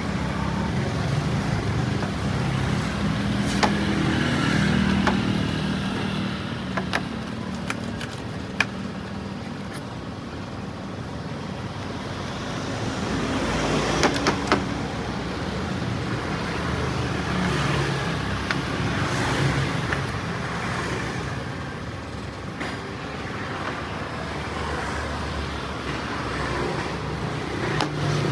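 Paintbrush bristles scrubbing dust off the metal front panel of a Victor JA-S35 amplifier, over a steady low rumble like engine or traffic noise. A few sharp clicks, the loudest about fourteen seconds in.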